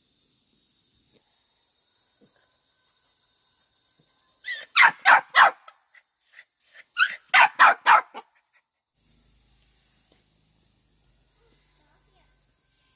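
A dog barking: two quick bouts of three or four sharp barks about two seconds apart, with insects chirping steadily behind.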